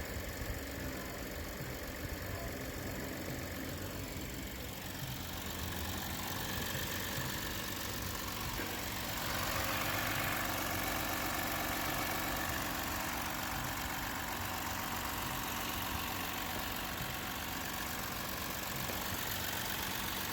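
A car engine idling steadily, with an even low hum that gets slightly louder and brighter about ten seconds in.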